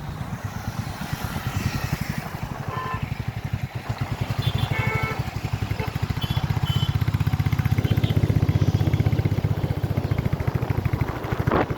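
Motorcycle engine running steadily while riding, with a fast pulsing beat, getting louder about eight seconds in. A few short high beeps sound between about three and seven seconds in.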